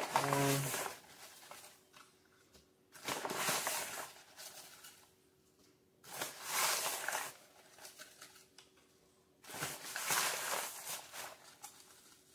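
Cornmeal being scooped from its bag with a measuring cup and poured into a plastic mixing bowl: the bag rustles and the dry meal pours in four separate bursts, about three seconds apart.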